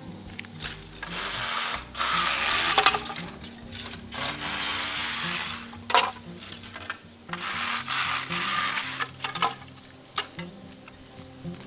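Dry bamboo and leaf litter rustling and crackling in bursts of one to two seconds, with a couple of sharp snaps, over background music.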